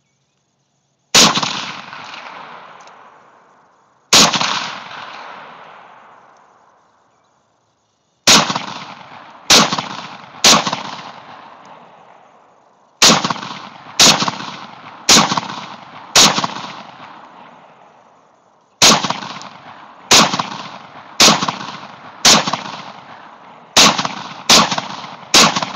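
An SKS semi-automatic rifle in an SGWorks bullpup stock, firing about sixteen single shots, each followed by a long rolling echo. The shots come a second or more apart, with longer pauses early on, and quicken near the end.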